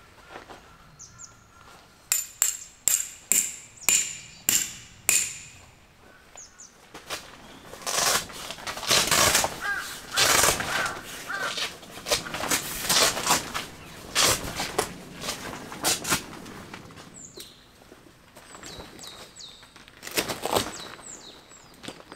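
Clear plastic tent panel crinkling and rustling as it is unfolded and handled, in irregular loud bursts through the middle. Before it comes a quick run of about eight sharp snaps, and short bird chirps sound near the end.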